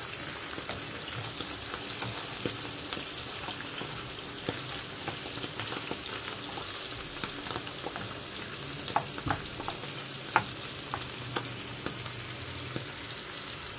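Halved button mushrooms sizzling in hot oil in a nonstick frying pan. A steady crackling hiss runs throughout, with a few sharper pops about two thirds of the way in.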